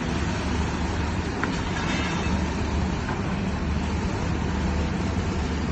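Steady traffic noise: a continuous low rumble of motor vehicles with a faint hiss over it.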